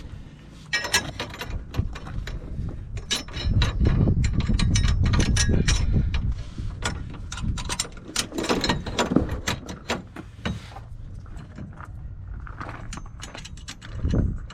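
Irregular metallic clicking and clinking of hand tools and hardware being handled, with a louder stretch of low rumbling noise about four to six seconds in.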